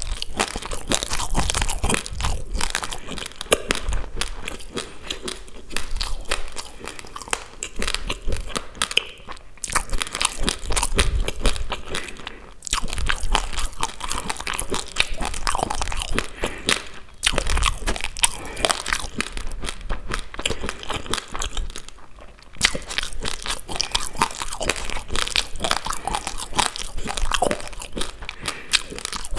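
Raw basmati rice being chewed right at a clip-on microphone: rapid, dense crunching of the hard dry grains, in long runs broken by a few short pauses.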